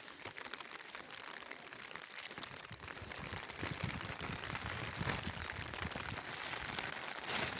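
Even hiss of rain and running floodwater over a flooded field. From about three seconds in, low irregular bumps come in and the sound grows slightly louder.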